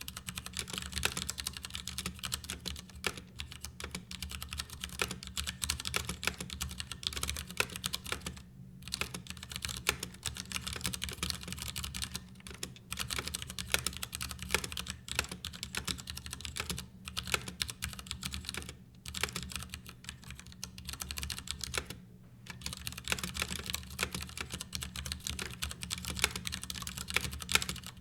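Steady typing on a Ducky Year of the Rat 60% mechanical keyboard: dense key clacks from its PBT keycaps on hot-swap switches, in a case with no sound-dampening material. The typing stops briefly about four times.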